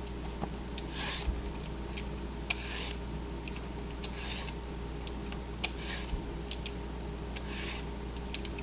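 Vegetable peeler scraping strips of skin off a cucumber, one short stroke every second or two, with a few light clicks, over a steady low hum.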